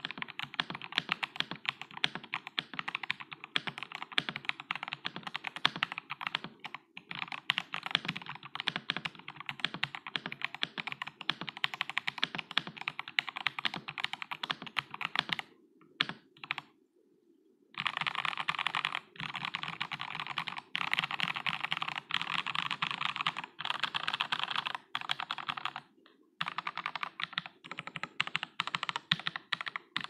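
Typing on a NextTime75 (LǎoXuē75) mechanical keyboard with MMD Panda switches and Olivia-style keycaps: a fast, steady stream of keystrokes. A short pause comes a little past halfway, then bursts of rapid one-handed key presses, each about a second long with brief breaks between.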